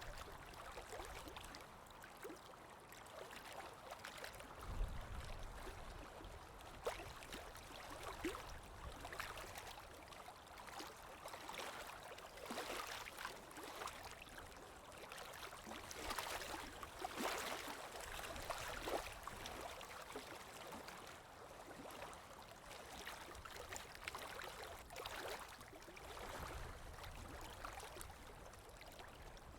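Running water trickling and gurgling steadily, with many small irregular splashes.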